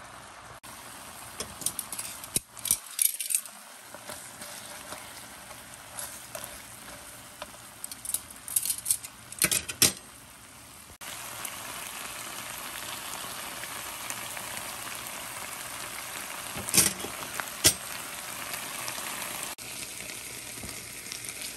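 Chicken pieces sizzling in hot oil in a stainless steel frying pan, a steady hiss. Sharp clinks of a cooking utensil against the pan come in a few short clusters.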